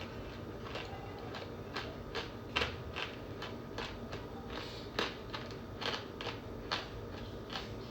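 Chunks of Argo cornstarch being bitten and chewed, with sharp, crisp crunches and crackles coming irregularly, about one or two a second.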